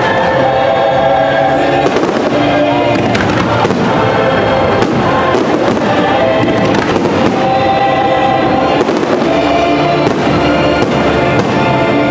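Aerial fireworks bursting in a quick series of sharp pops and bangs, over loud, continuous show music.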